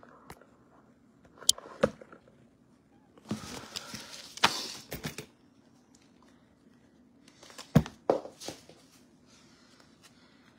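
Handling noises: a few sharp clicks and knocks, with a stretch of rustling about three to five seconds in, and more clicks near eight seconds in.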